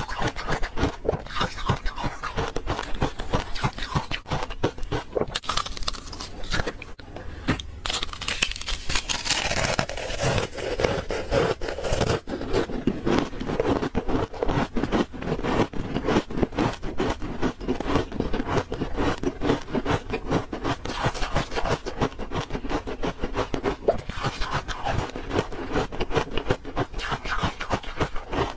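Thin slices of ice being chewed close to the microphone: dense, rapid crunching and crackling, with no pause.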